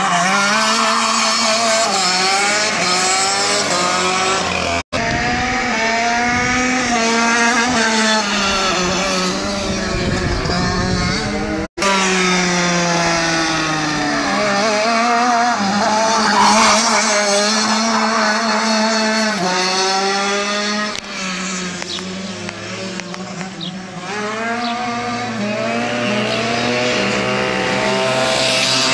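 Several go-kart engines revving hard and easing off through the corners, their pitch repeatedly climbing and falling as the karts accelerate and brake, with more than one kart heard at once. The sound drops out for an instant twice in the first half.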